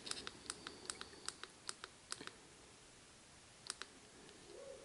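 Faint, quick clicks of the push buttons on a Trail Tech Vapor motorcycle computer pressed over and over to step through its settings. The clicks come about four a second for the first two seconds, then stop, and two more come near the end.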